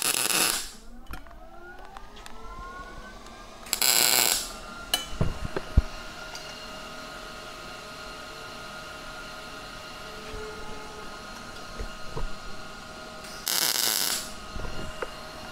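MIG welder laying tack welds: three short bursts of arc crackle, one at the very start, one about four seconds in and one near the end. Between them the welder's cooling fan hums steadily, with a few sharp clicks.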